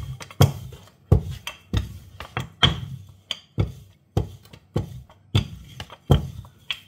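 Wooden rolling pin working paratha dough thin on a countertop: a run of irregular knocks and thuds, about two a second, as the pin is pushed back and forth and strikes the surface.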